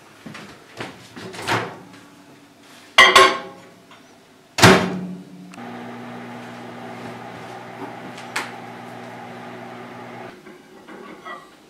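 A few sharp clunks as the bowl goes into a Magic Chef microwave oven and its door is shut. Then the microwave runs with a steady hum for about five seconds and stops abruptly.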